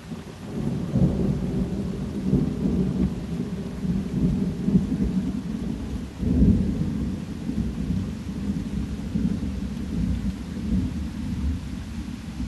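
Thunder rolling in a low, rumbling swell that builds about half a second in and surges again around six seconds, over steady rain.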